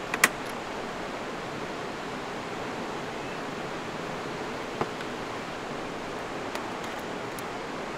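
Steady rushing of a nearby creek, with a sharp click just after the start and a smaller one near the middle as a portable fridge is released and pulled out on its slide drawer, plus a few faint clicks as its lid is opened.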